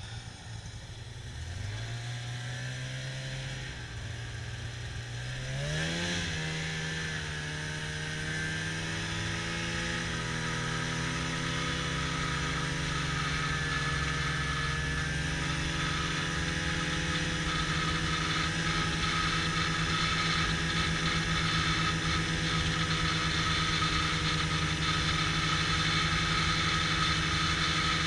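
Snowmobile engine pulling away: its pitch climbs about a second and a half in and again around six seconds in, then holds as a steady drone while the sled runs at speed over the snow.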